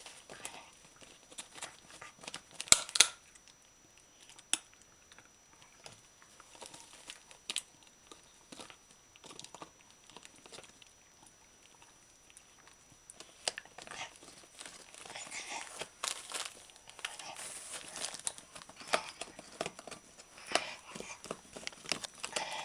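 A terrier chewing a crunchy chew bone and tearing at its crinkly wrapper: scattered sharp crunches and snaps, the loudest about three seconds in, with denser crinkling and rustling of the wrapper through the second half.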